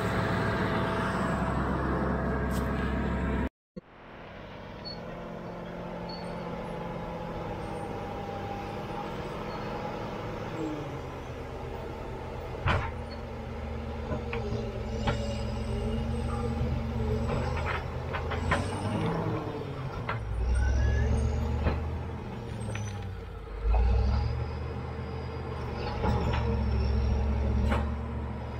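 Caterpillar D7G bulldozer's six-cylinder diesel engine running steadily, close by at first and then from farther off after a cut. In the second half it swells in heavy surges twice as the dozer works against a large boulder, with scattered sharp knocks.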